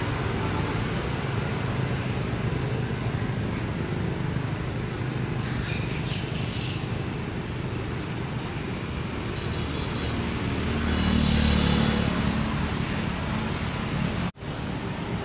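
Steady low road-traffic rumble. A vehicle passes louder about ten to twelve seconds in, and the sound cuts out for a moment near the end.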